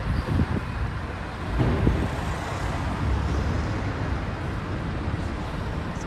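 Steady low rumble of road traffic.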